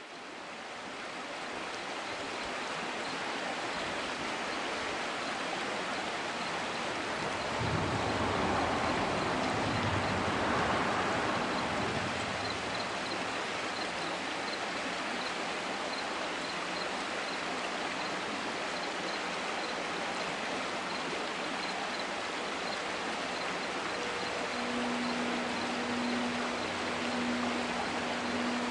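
River water flowing, a steady rushing stream that fades in at the start and swells louder for a few seconds around eight to twelve seconds in. A faint steady hum joins near the end.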